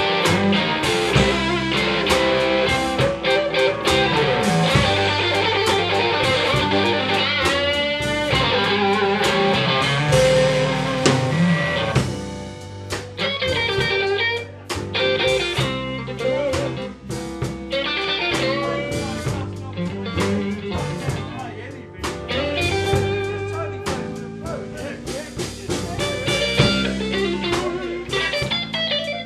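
Two guitars playing a blues live: electric lead lines with bent, wavering notes over a second guitar's chords, through a small pub PA.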